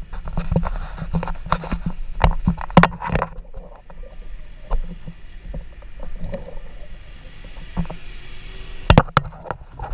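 Paddle strokes and water slapping against a stand-up paddleboard: a run of sharp splashes and knocks in the first three seconds, quieter lapping in the middle, and two sharp knocks near the end, over a low rumble.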